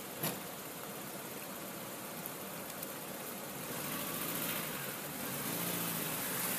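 Steady outdoor traffic noise with a car engine running, growing a little louder in the second half, and a short knock just after the start.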